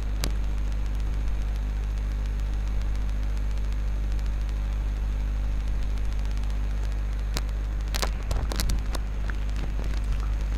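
Steady low electrical hum of the recording setup, with a few sharp clicks, most of them bunched together about three-quarters of the way in.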